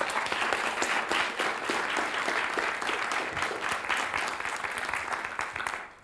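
Audience applauding: dense clapping that dies away near the end.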